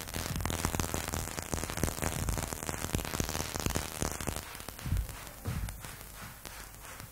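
Hiss and crackle of an old FM-radio-to-cassette recording, with no programme sound. It fades slowly, with a couple of dull low thumps about five seconds in.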